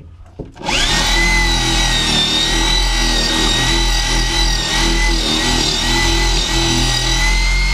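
Handheld power drill running steadily at full speed, drilling out a stripped seat bolt in a car floor. The motor starts about a second in and begins to wind down with a falling whine at the very end.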